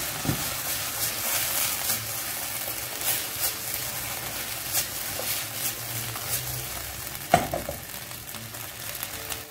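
Minced beef, red onion and peppers sizzling in a nonstick frying pan while a wooden spoon stirs them, scraping across the pan about once a second, with a sharper knock of the spoon a little past seven seconds in.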